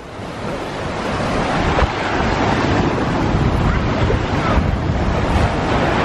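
Surf washing in over the shallows, swelling over the first couple of seconds as the wake of a passing motorboat reaches the beach, with wind buffeting the microphone.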